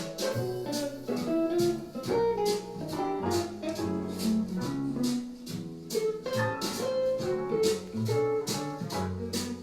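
Music played back through a Bose Smart Soundbar 900: plucked guitar notes over bass notes, with a light, regular percussion beat.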